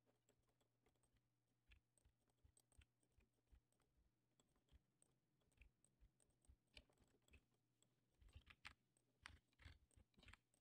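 Faint, scattered clicks of a computer keyboard and mouse, busier for the last couple of seconds, over a faint steady low hum.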